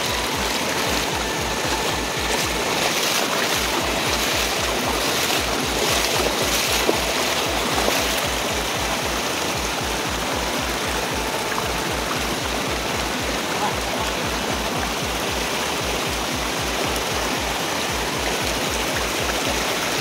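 Fast-flowing stream water rushing steadily over rocks.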